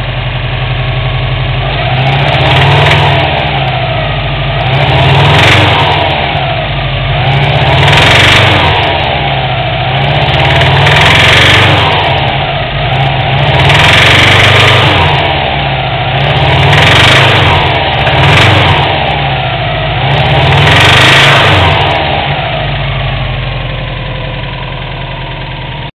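Subaru WRX's turbocharged flat-four engine revved up and down over and over, about once every three seconds, then settling back to a steady idle near the end. The owner is chasing a knocking sound from this engine.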